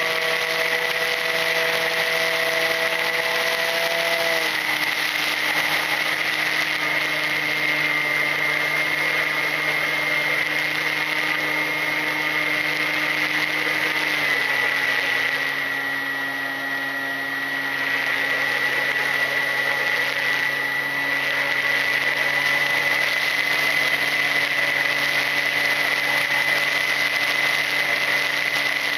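Electric motor and pusher propeller of a Volantex Ranger EX FPV plane in flight, heard through its onboard camera: a steady motor hum with a high whine over rushing air. The motor's pitch steps down twice, about four seconds in and again about fourteen seconds in.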